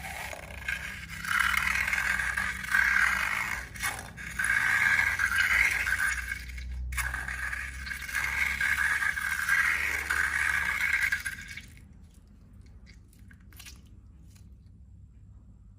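Rough scraping and rustling in uneven strokes for about twelve seconds, then it stops.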